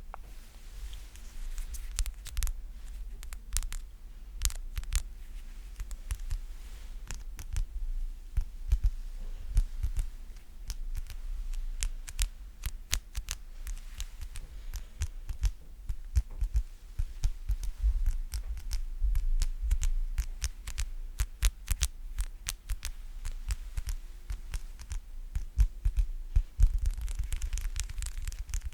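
ASMR sticky sounds close to the microphone: a tacky surface pressed and pulled apart, giving irregular sharp clicks and pops several times a second over a low rumble, louder near the end.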